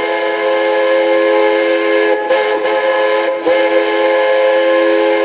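Ice hockey arena goal horn sounding a loud, steady multi-note chord like a train horn, with two very brief breaks partway through.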